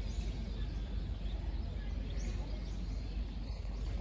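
Outdoor ambience: a steady low rumble with faint, short high chirps scattered through it.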